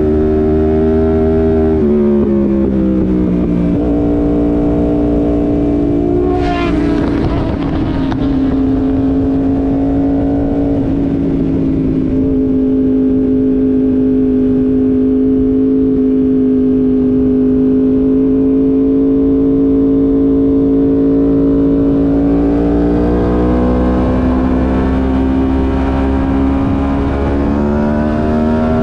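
Yamaha YZF-R1M's crossplane inline-four at speed on a racetrack, heard from a camera on the bike. The engine note falls about two seconds in and climbs again, with a brief sharp crack a few seconds later. It then holds steady for about ten seconds through a long corner and rises near the end as the bike accelerates onto the straight. Wind rushes over the microphone throughout.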